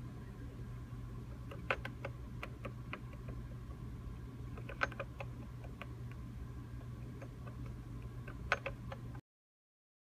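Steady low hum of room equipment with small scattered clicks and ticks, three of them sharper, then the sound cuts to dead silence about a second before the end.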